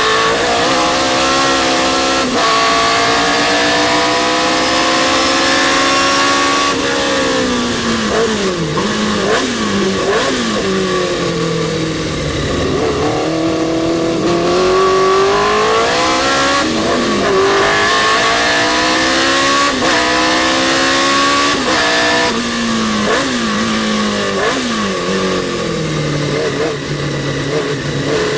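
Historic sports racing car engine at full throttle, its pitch climbing through the revs and dropping sharply at each upshift. Twice it slows through a run of quick downshifts with throttle blips, then pulls hard again.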